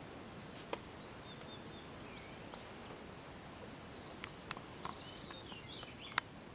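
Steady rushing noise of a slow-moving block-and-ash pyroclastic flow in a river channel, broken by three sharp cracks, the loudest near the end. Birds chirp and a steady high insect buzz sounds over it.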